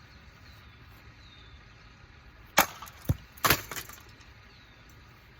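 Three sharp knocks about half a second apart, the last followed by a short clatter, as the blades and metal blade arms of an old industrial ceiling fan are struck and banged about.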